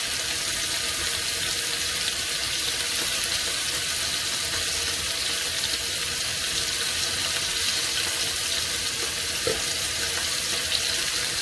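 Pieces of beef sizzling steadily in hot oil in a heavy pan as they brown, an even hiss throughout, with one light tap about nine seconds in.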